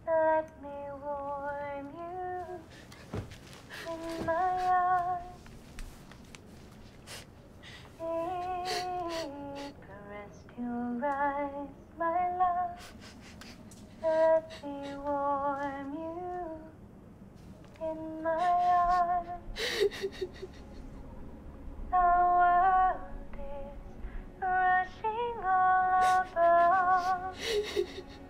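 A woman humming a slow lullaby without words, in short phrases of held, wavering notes with pauses between them. Brief soft clicks fall between some of the phrases.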